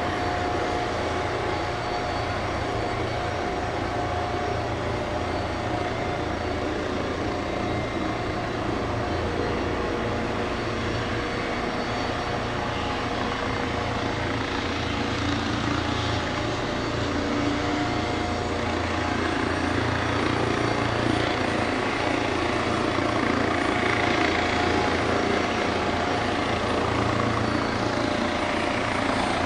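Airbus Helicopters EC155B1 (H155) running steadily: twin turboshaft engines whining over a low rotor throb.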